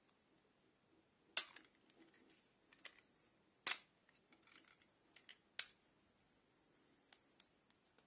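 Utility knife blade cutting and scraping the plastic insulation of a coaxial cable: a string of short, sharp snicks, the loudest about a second and a half in and just before four seconds.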